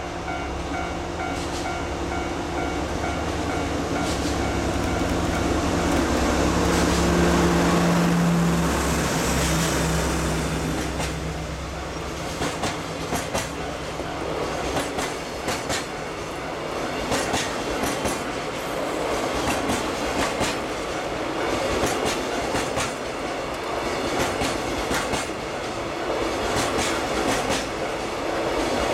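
DD51 diesel-hydraulic locomotive, its twin V12 engines at full throttle on the climb, passing close by, loudest about seven or eight seconds in and dropping in pitch as it goes past. The engine then fades behind a long container train rolling by with a steady rumble and rhythmic clickety-clack of wheels over rail joints.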